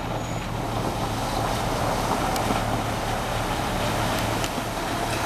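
Hummer H3 driving hard through a muddy puddle: a steady engine drone with water and mud splashing off the tyres, getting a little louder over the first couple of seconds as it comes closer.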